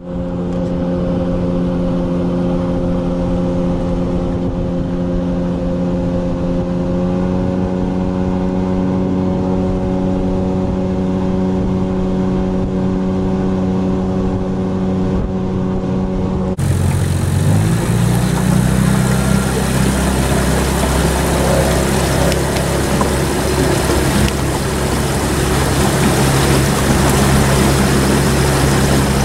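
Small fishing boat's motor running steadily under way. About two thirds of the way in, the sound changes abruptly to a lower engine note, which rises slightly and settles, with more rushing noise around it.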